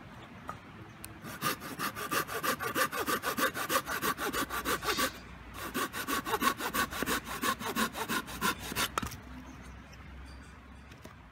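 Hand saw cutting through wood with quick back-and-forth strokes, about four or five a second. The sawing pauses briefly about five seconds in, then stops about nine seconds in.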